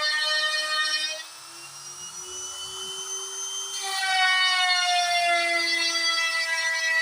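DIY CNC router carving wood, its motors whining in several tones that shift in pitch as the machine moves. The sound drops quieter about a second in and grows louder again about four seconds in, its pitch then slowly falling.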